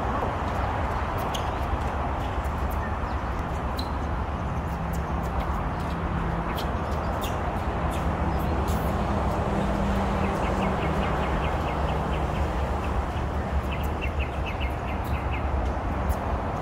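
Steady low outdoor rumble with scattered short sharp clicks. In the second half comes a fast run of high bird chirps.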